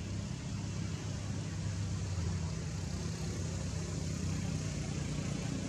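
Steady low hum of an idling engine, even in level with no revving.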